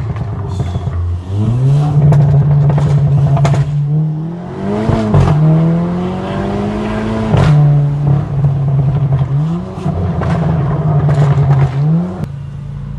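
Volkswagen Golf R's turbocharged four-cylinder engine revved up and down several times, with sharp crackles and pops from the exhaust. Near the end the revs drop and it settles to a steadier, quieter idle.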